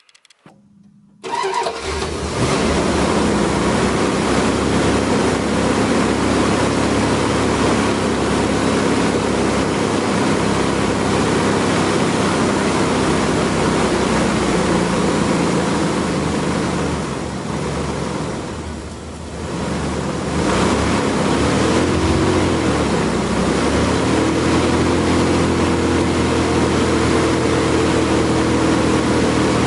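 1997 Dodge Ram 1500's 5.9 Magnum V8 starting about a second in and running fast after a Seafoam treatment. Its pitch dips about halfway through, then rises in a short rev and stays higher near the end.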